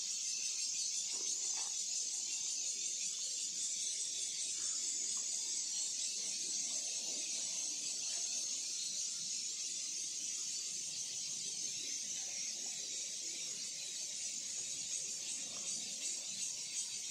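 A steady high-pitched hiss or buzz, with faint scattered crunches and scrapes as dogs gnaw bones on sandy ground.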